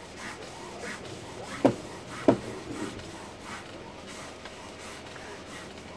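Hand chisel cutting a small wooden spoon turning on a foot-powered pole lathe. Short scraping strokes come in a steady back-and-forth rhythm, about one and a half a second, as the cord spins the wood to and fro. Two louder knocks come a little over a second and a half in and again just after two seconds.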